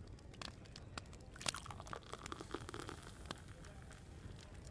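Open wood fire crackling, with irregular sharp pops and snaps. A softer burst of noise swells up about a second and a half in and fades a second or so later.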